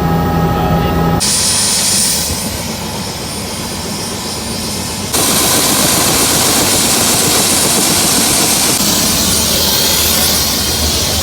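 Helicopter in flight: steady, loud engine and rotor noise with a thin high whine. The sound changes abruptly about a second in and again about five seconds in.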